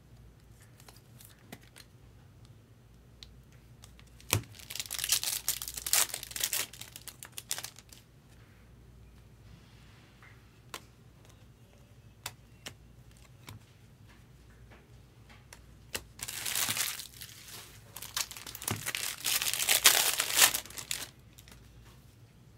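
Baseball card pack wrapper torn open and crinkled by hand, in two bouts of a few seconds each: one about four seconds in, and a longer one from about sixteen seconds in. Scattered light clicks and taps come between the bouts.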